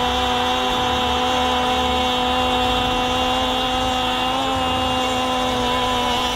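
A football commentator holding one long, drawn-out cry of "Allah" at a steady high pitch for several seconds, celebrating a last-minute goal, over crowd noise.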